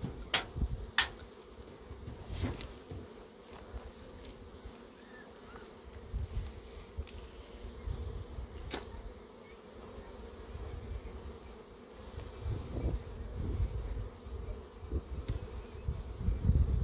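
Honeybees buzzing in a steady hum around an opened wooden beehive. A few sharp clicks and knocks come from the lid and frames being handled, most of them in the first few seconds.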